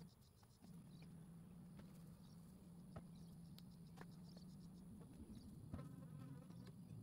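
Honeybees buzzing in a steady, faint hum around the hives, from colonies the beekeeper calls really aggressive in the drought. A few faint knocks are heard.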